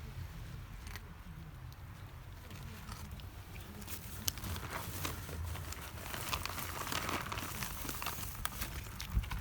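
Wind rumbling on the microphone, with crinkly, crunching sounds and scattered sharp clicks that grow louder over the second half.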